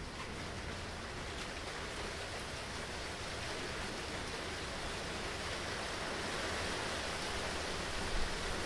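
Steady rain falling in a thunderstorm, an even hiss that swells slightly toward the end.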